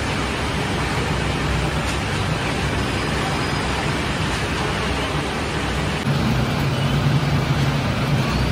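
Bakery dough sheeting machinery running steadily: a low motor hum under a broad hiss, the hum growing louder about six seconds in.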